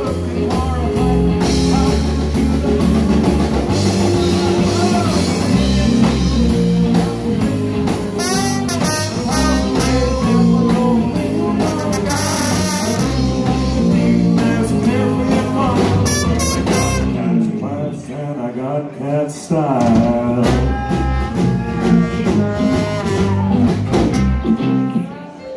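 Live band playing a rockabilly blues groove on keyboard, electric guitar, electric bass, drum kit and trombone. About two-thirds of the way through, the bass and drums drop out for a couple of seconds in a stop-time break, then the full band comes back in.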